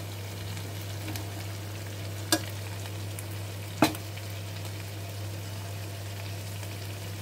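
A whole chicken sizzling in a pan over a low gas flame, cooking in its own fat with only a little oil, nearly done. A spatula knocks sharply against the pan twice, about a second and a half apart, near the middle.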